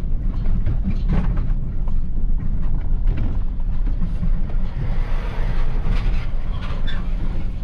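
Heavy farm vehicle engine running steadily under way, a loud low rumble with rattles and clatter throughout.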